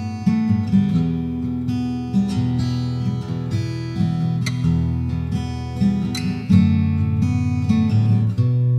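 Background music played on acoustic guitar, plucked and strummed notes changing every second or so.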